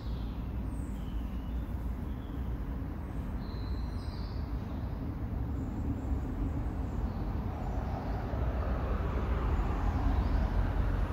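Steady low rumble of road traffic, swelling louder in the second half.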